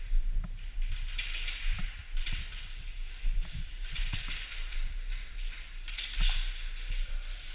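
Footsteps crunching through dry leaves and brush, with rustling every second or so over a low, steady rumble.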